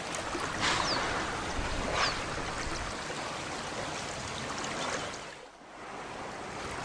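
River water flowing steadily. Twice, about 0.7 s and 2 s in, a short high whistle falls in pitch over the water.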